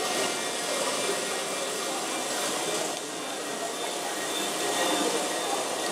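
Loose soil pouring off the raised bed of a radio-controlled scale tipper truck onto a pile below, a steady rushing hiss.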